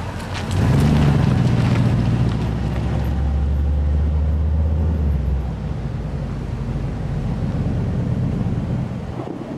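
A motor vehicle's engine rumbling close by, coming up loud about half a second in and easing off after about five seconds.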